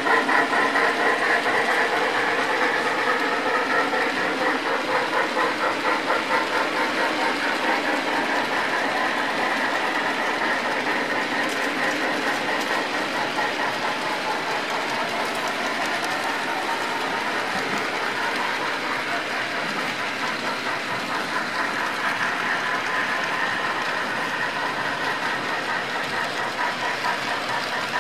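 HO-scale model freight train running past on the track, its car wheels rolling on the rails with a steady rumble and a regular beat of about two a second. The sound grows gradually quieter.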